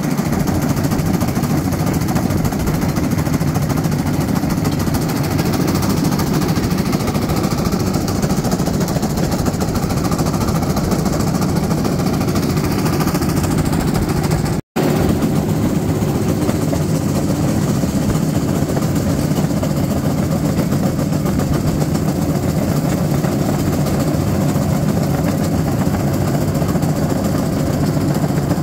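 Railcart (rail speeder) rolling along an old track, its small engine running steadily under the rattle of its wheels on the rails. The sound cuts out for an instant about halfway through.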